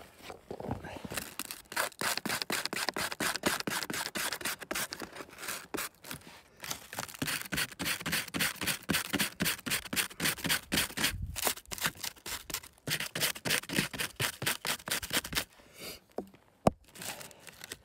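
Knife blade scraping birch bark into tinder shavings, in quick repeated strokes with a couple of short pauses, stopping near the end. A single sharp click, the loudest sound, follows.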